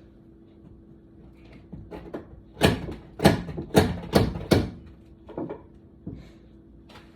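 A run of sharp knocks: a few light taps, then about five loud ones in quick, uneven succession, then a couple of fainter ones.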